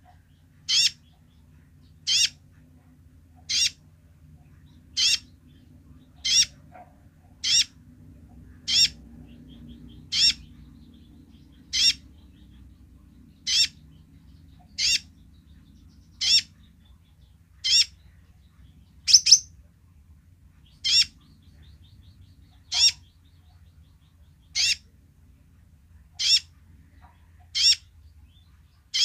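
Male Van Hasselt's sunbird (kolibri ninja) giving its basic call: a single short, sharp, high note repeated about every second and a half, about twenty times. One note about two-thirds of the way through is doubled and louder.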